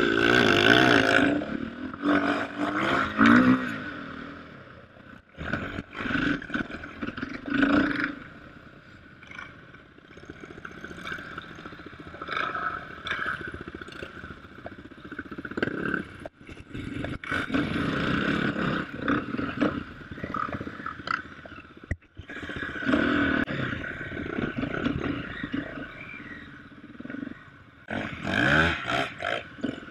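KTM off-road motorcycle engine being ridden, revving up and dropping back again and again, with loud surges of throttle several times.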